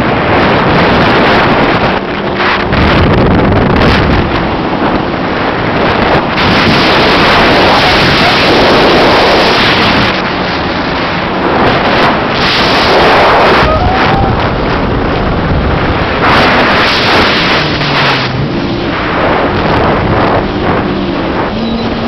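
Wind buffeting the microphone on a moving jet ski, with the watercraft's engine and rushing water spray beneath it.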